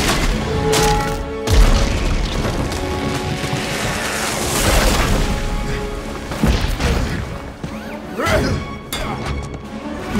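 Orchestral film score under a fight's sound effects: several sudden heavy booms and crashes of armoured bodies hitting, the deepest about a second and a half in, with a rushing swell in the middle.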